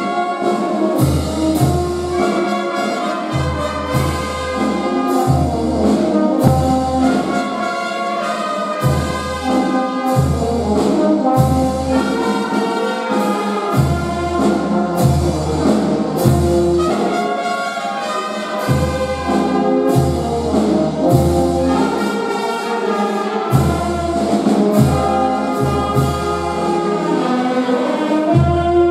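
Brass band playing: trumpets and trombones carry the tune over low bass notes with a regular beat.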